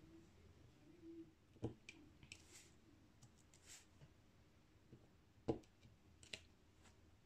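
Near silence with a few faint, scattered clicks and taps, the sharpest about five and a half seconds in: a diamond-painting stylus setting small special-shaped resin drills onto the canvas.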